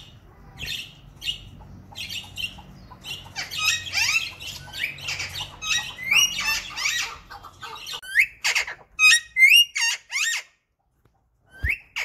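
A pair of ring-necked parakeets calling together: short repeated squawks that grow louder and denser a few seconds in, then loud separate screeches that sweep up in pitch near the end.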